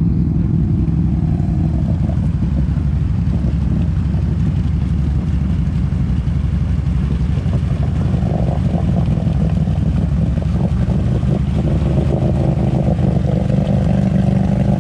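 ATV engine running steadily under load as the quad wades through a deep mud hole, its note getting fuller about halfway through as it nears.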